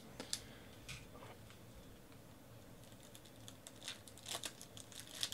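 Faint crinkles and small ticks of a foil baseball-card pack wrapper being picked up and handled, sparse at first and coming thicker in the second half.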